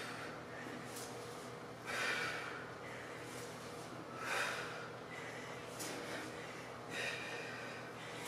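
A woman breathing hard through her nose and mouth, with sharp breaths about every second or two in time with overhead kettlebell swings. It is the breathing of effort during the exercise.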